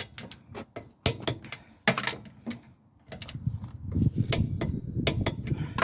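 Irregular sharp metallic clicks and clinks of hand tools and parts being handled, with a low rumble starting about three seconds in.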